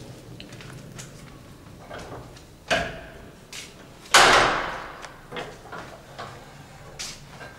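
Knocks and clunks from a cast-iron hand printing press being worked. The loudest is a sudden bang about four seconds in that dies away over about a second, with a smaller knock just before it and lighter clicks around them.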